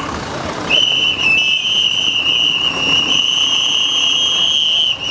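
A whistle blown in one long, steady, high-pitched blast lasting about four seconds, starting about a second in, over the general noise of a crowd.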